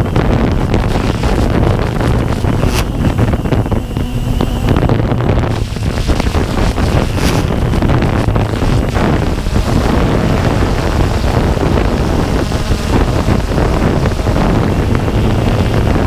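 Walkera Tali H500 hexacopter's motors and propellers running steadily in flight, heard through its onboard camera, with a low hum under heavy wind buffeting on the microphone.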